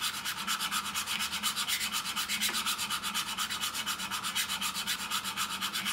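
Edge of an old saw blade scraping across a spinning copper faceting lap, scoring erratic scratch marks to texture the surface for polishing: a rasping scrape that pulses rapidly and evenly, over the machine's steady low motor hum.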